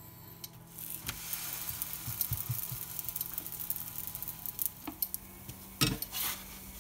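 Msemen flatbread dough sizzling in a hot nonstick frying pan, with small crackles. About six seconds in comes a louder scrape as a spatula slides under the cooked bread to lift it.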